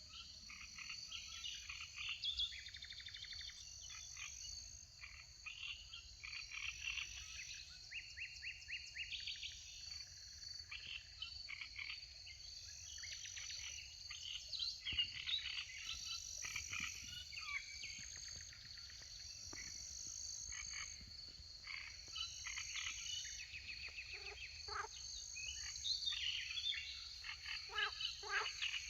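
A chorus of frogs calling over one another, many in rapid pulsed trills and croaks, with a steady high-pitched buzzing underneath.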